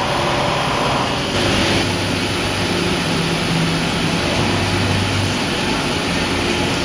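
Fadal three-axis CNC vertical mill running a cutting cycle: a steady machining noise with a hum that shifts pitch a few times as the spindle drives a spot drill into a part in the vise. It is cutting a small dimple that the following drill bit's tip sits in, so the bit doesn't wander or break.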